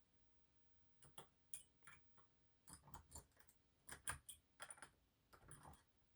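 Faint, irregular clicking and scraping of a flag-style dimple pick working the small pins inside a dimple-pin cylinder lock as it is being picked, starting about a second in.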